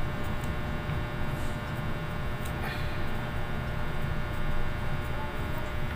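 Steady low hum with a few faint ticks over it.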